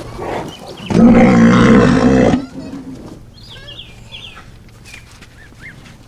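A single loud, deep animal call, rough and pitched at once, lasting about a second and a half. It starts suddenly about a second in and cuts off abruptly.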